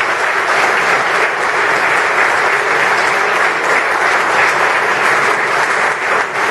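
Audience applauding steadily: a roomful of people clapping after a speech.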